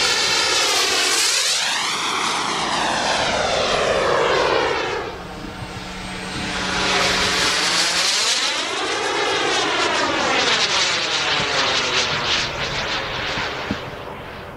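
Super Scorpion RC sport jet's model turbine engine passing overhead: its rushing whine swells and fades twice, sweeping in pitch as it goes by, then fades near the end.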